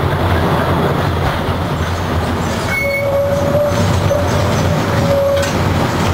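McKinney Avenue streetcar running along its rails, a steady rumble heard from inside the car. About three seconds in, a squeal of steel wheels on rail sets in and holds for some two and a half seconds before stopping.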